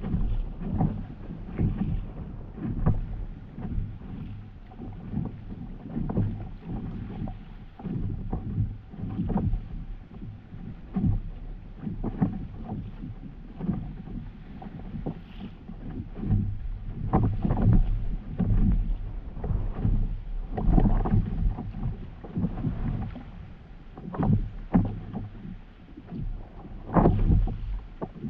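Stand-up paddleboard paddle strokes: the blade dipping into and pulling through seawater, a splash roughly every second, over a steady low rumble.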